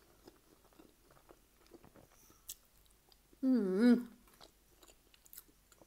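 Chewing a mouthful of chicken burrito, with many faint mouth clicks. Around three and a half seconds in comes a short hummed 'mmm' with a wavering pitch, which is the loudest sound.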